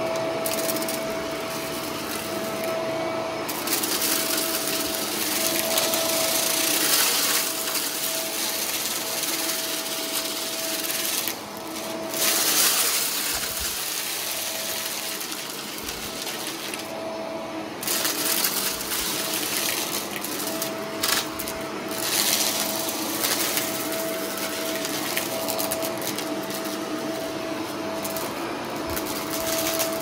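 Shark upright vacuum cleaner running over carpet: a steady motor whine over the rush of suction air, rising and falling as the head is pushed back and forth. A few sharp clicks come as small stones are sucked up, a little past the middle.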